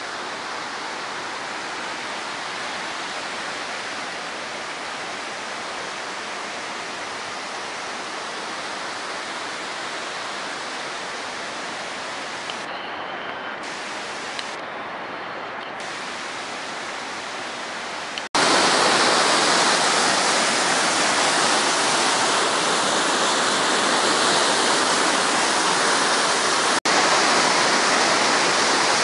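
Martuljek waterfall: steady rushing of falling water that cuts abruptly about two-thirds of the way through to a louder, brighter rush.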